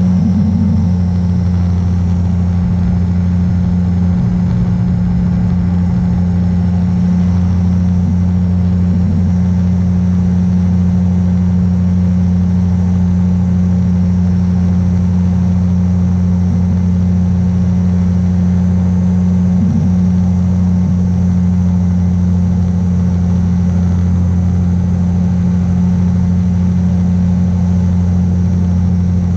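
Beaver RX 550 ultralight's pusher engine and propeller running steadily in level flight, a loud drone held at one pitch.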